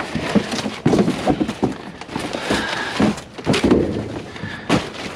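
Irregular knocks, thuds and rustling of junk being pulled out of a box and handled in a metal dumpster.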